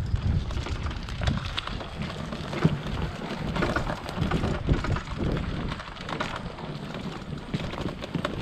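Electric mountain bike riding over a forest trail: irregular crackling, clicking and knocking from the tyres on dirt, twigs and leaves and from the bike rattling over bumps.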